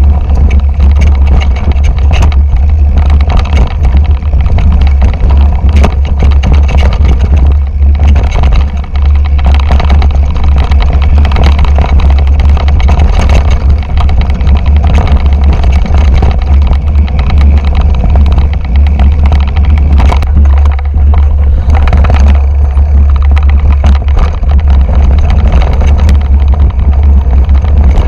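Loud wind buffeting an action camera's microphone, a steady low rumble, over the constant rattling and knocking of a 2008 Intense Tracer mountain bike descending fast over rough trail.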